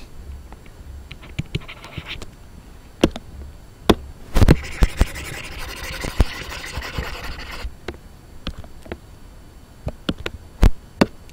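Pen scratching on a writing surface, with scattered sharp clicks and a longer stretch of steady scratching from about four and a half to seven and a half seconds in.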